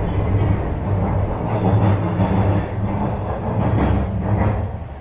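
Toronto subway train running in the station: a loud, steady rumble and hum that falls away sharply near the end.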